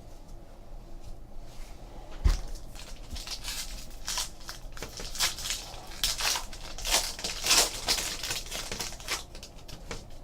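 Trading card pack wrapper crinkling as it is torn open and handled, with the cards being riffled through; one dull knock about two seconds in, then a run of irregular crackles through the middle.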